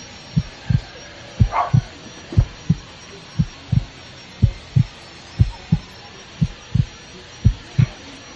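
A heartbeat sound effect: a steady lub-dub of two low thumps about a third of a second apart, repeating about once a second.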